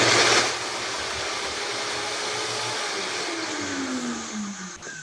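Countertop blender chopping canned garbanzo beans in a few tablespoons of water, the first run in making hummus. It starts with a loud burst, then runs with a steady whir, and its pitch falls away near the end as it is turned down.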